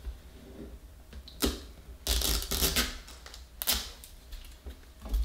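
Hands handling a small plastic L.O.L. Surprise ball and peeling its wrapping: a sharp click, about a second of crinkling, then more scattered plastic clicks.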